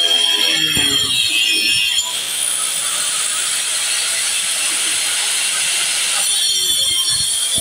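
Electric angle grinder cutting into a concrete wall, its disc running with a loud high whine and grating. From about two seconds in to about six seconds the whine gives way to an even, rougher rasp, then the tone comes back.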